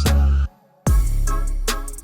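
Background electronic music with a heavy bass line and sharp drum hits; it drops out for a moment about half a second in, then comes back.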